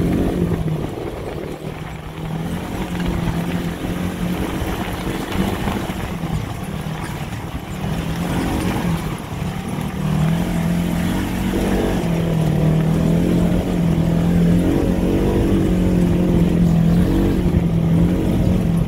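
Side-by-side off-road vehicle's engine running on a rocky dirt trail, its note stepping up and down between two pitches as the throttle changes, over a rough rumble from the uneven ground. It gets somewhat louder in the second half.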